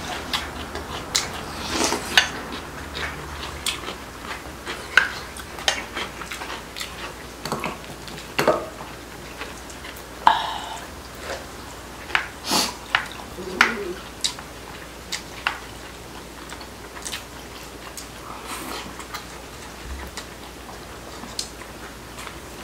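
Table eating sounds: spoon and chopsticks clicking and tapping against bowls in scattered sharp ticks, with chewing in between.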